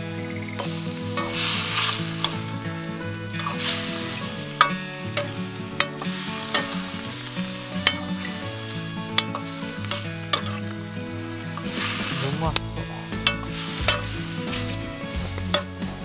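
Seafood and sausage sizzling as they are stir-fried in a wok, the sizzle swelling each time the food is tossed, with frequent sharp clinks of the utensil against the pan.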